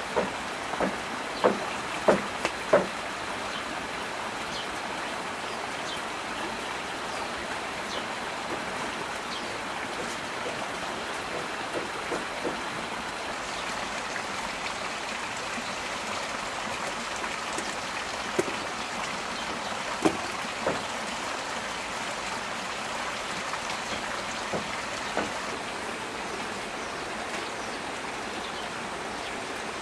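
Steady heavy rain hissing, with scattered sharp knocks: a cluster in the first three seconds and a few more later on.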